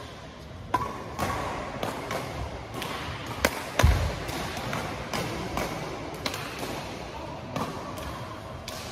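Badminton rackets striking a shuttlecock, sharp clicks coming in quick irregular succession during a rally, with one heavier thud about four seconds in.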